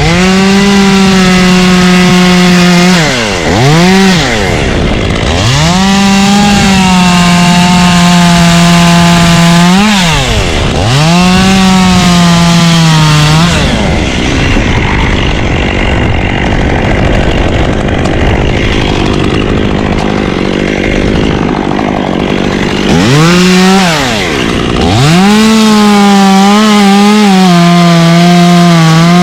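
Two-stroke chainsaw running at full throttle through ponderosa pine, its note sagging under load and dropping sharply when the throttle is let off and reopened, about 3 s, 10 s and twice near 24 s in. About halfway through, the high engine note gives way to a loud rushing noise for several seconds before the saw comes back at full throttle.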